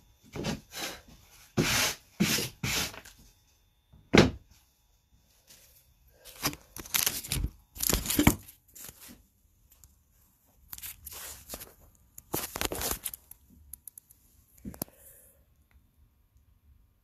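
A hand brushing sawdust off a scroll-sawn quarter-inch Baltic birch plywood panel, in groups of short rough strokes, with one sharp knock about four seconds in.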